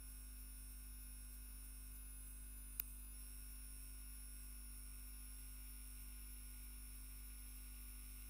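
Faint steady electrical hum with a thin high whine, the noise floor of an open audio line with no other sound on it; one faint click about three seconds in.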